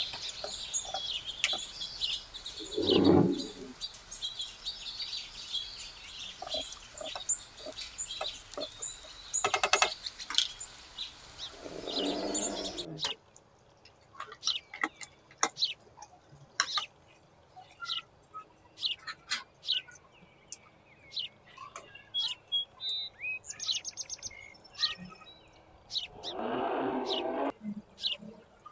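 Small birds chirping again and again, over kitchen sounds of a spatula scraping and tapping in a wok, with a couple of louder scrapes in the first half and a short rush of noise near the end.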